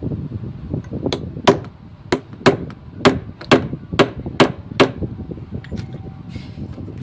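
Hammer blows on an ignition lock being dismantled: about ten sharp strikes, roughly two a second, then a few lighter clicks near the end.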